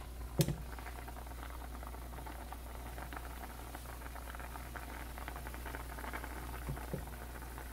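Chicken and rice mix in water bubbling at a rolling boil in a pan on an electric stovetop: a steady crackle of many small bursting bubbles. A single sharp click about half a second in.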